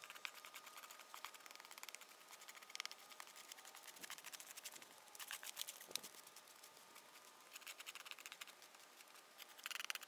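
Faint scraping and scratching of a hoe dragged through hard dirt, in irregular strokes, with a faint steady tone under it.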